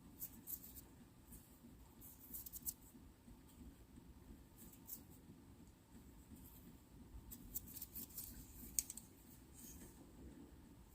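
Faint scattered clicks and light taps of small hard objects being handled, in short clusters with pauses between, over a low room hum.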